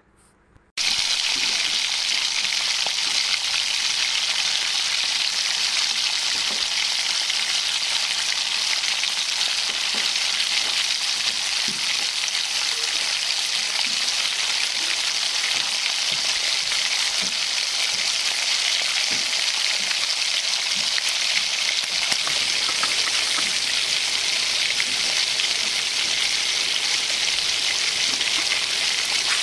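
Marinated chicken pieces shallow-frying in hot oil in a black iron wok: a steady, dense sizzle with fine crackling that starts abruptly about a second in.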